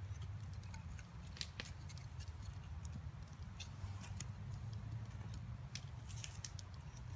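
Wooden sticks being pushed and wedged into a tight upright bundle of green-wood poles: scattered small clicks and scrapes of wood on wood, over a low steady rumble.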